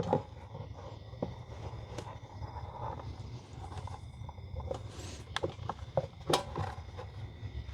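Scattered light clicks and knocks of tools and parts being handled, over a low steady hum, with a small cluster of sharper knocks about five to six and a half seconds in.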